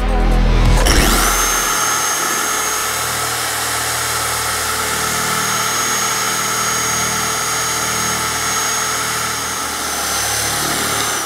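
Music for about the first second, then a dual-action polisher with a heavy-cutting microfiber pad running steadily against a painted plastic rear bumper, cutting the texture out of the paint. It makes an even rushing hiss with a thin, high steady whine over it.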